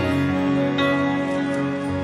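Soft instrumental background music with held chords, changing chord a little under a second in.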